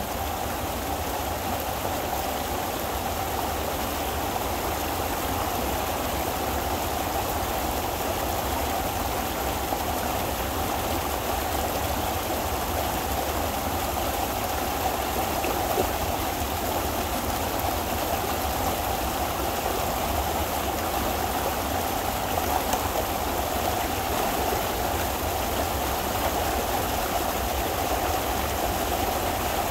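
Pond water rushing steadily through a breach dug in a beaver dam, with a couple of brief knocks partway through.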